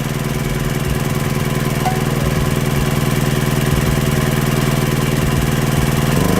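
Small petrol generator engine running steadily under the load of a heat gun, about 1,000 watts. It is a load the owner says was too much for it. Right at the end its pitch begins to drop as the engine bogs down.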